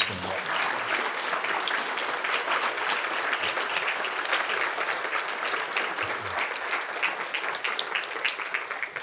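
Audience applauding: a roomful of people clapping, starting all at once and holding steady before thinning out near the end.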